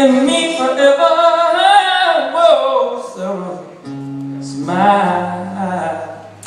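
A singer holds a long, bending vocal line without clear words over acoustic guitar. A second sung phrase follows a few seconds later over held low notes.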